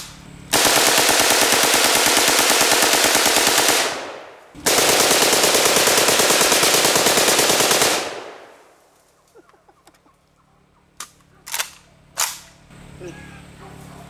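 AK-47 firing on full auto: two long bursts of rapid gunfire, the second starting about half a second after the first dies away, each trailing off in echo. A few sharp clicks follow later.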